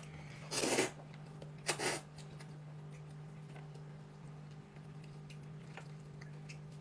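Two short hissing noises about a second apart near the start, then quiet with a low steady hum.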